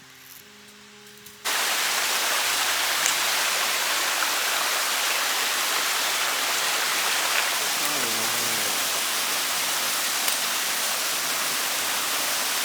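Steady rush of a waterfall, starting abruptly about a second and a half in after a moment of quiet background music.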